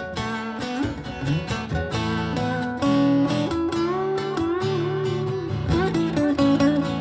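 Live music without singing: a baritone guitar, played through effects, plays an instrumental passage, with some notes sliding in pitch.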